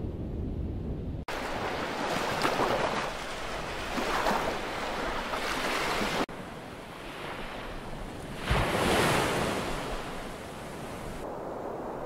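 Surf: waves breaking in surges, loudest about two, four and nine seconds in, with two abrupt cuts where the sound changes. The first second or so is a low wind rumble.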